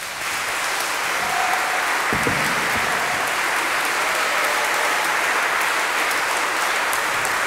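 Audience applauding in a large church; the clapping breaks out right at the start and then keeps up steadily.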